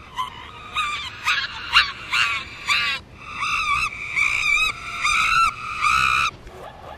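Chimpanzee calls played in reverse: a quick run of short, swooping pitched hoots for about three seconds, then a few longer wavering calls that stop a little after six seconds.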